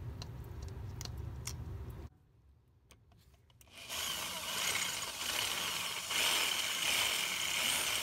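Power drill boring into the head of a rusted brake-rotor retaining screw with a larger bit, cutting steadily from about four seconds in with a high whine. Before that, a low rumble with a few clicks stops about two seconds in.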